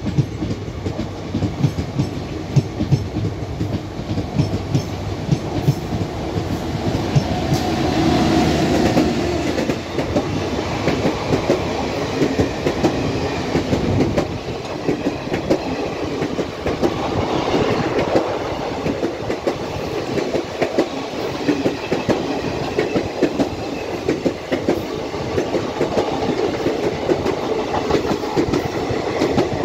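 Express train coaches of Indian Railways passing at speed, their steel wheels clattering over the rail joints in a continuous run of clicks. A heavier low rumble eases about halfway through, leaving mostly the clatter.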